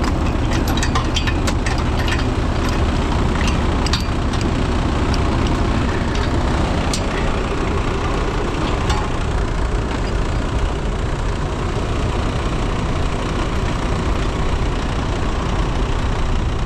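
Heavy truck diesel engine running steadily, with scattered sharp clicks through the first half.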